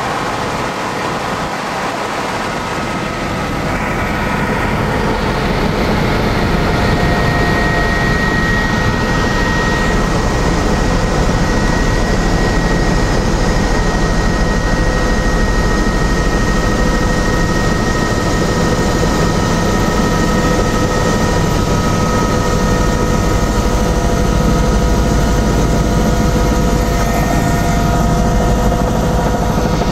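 Helicopter turbine and rotor heard from inside the cabin in flight: a loud, steady drone with a constant high turbine whine, growing a little louder a few seconds in.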